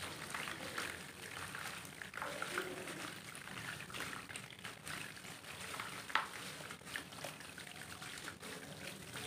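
Roasted dirt crumbling from squeezing hands and showering into a basin of water: a steady trickling, pouring patter with small crunches and splashes, and one sharper click about six seconds in.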